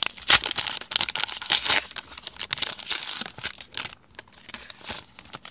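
Foil wrapper of a trading card pack being torn open and crinkled: a dense run of rips and crackles for about three and a half seconds, then a few softer crinkles.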